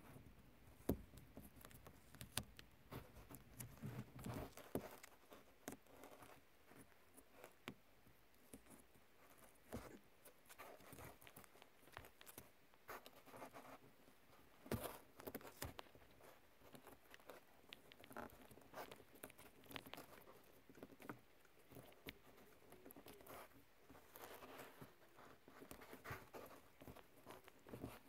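Faint rustling and scattered small clicks of fingers handling thin wires and a plastic multi-pin wiring connector, irregular and close up.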